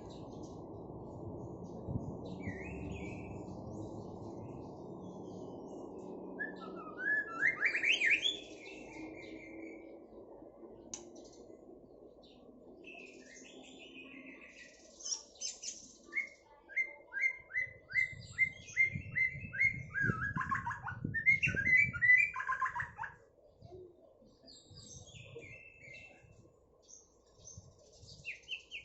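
White-rumped shama singing in varied whistled phrases in the style of an orange-headed thrush's song, including a fast run of evenly repeated notes.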